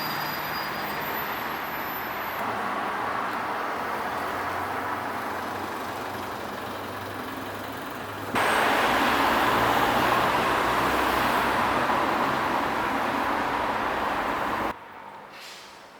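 City road traffic: a steady wash of vehicle noise with a low engine hum. It gets louder about eight seconds in, then drops suddenly to a much quieter background near the end.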